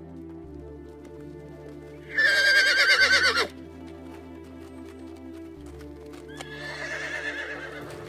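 A horse neighing: one loud whinny with a quavering pitch lasting about a second and a half, then a second, softer whinny near the end.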